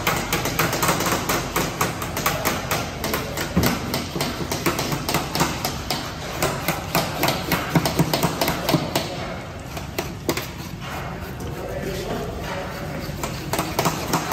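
Rapid repeated knocks and clanks of kitchen tools at work, several strikes a second, thinning out and easing off for a couple of seconds after the middle before picking up again.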